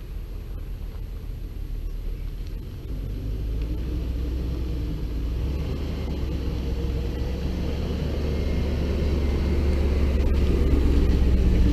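Pickup truck towing a fifth-wheel camper trailer drives slowly up to the microphone. Its engine rumble and tyre noise grow steadily louder as it approaches.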